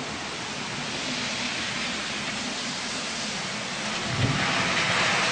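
Steady hiss of storm wind and rain outdoors. About four seconds in there is a short low thump, after which the hiss gets louder.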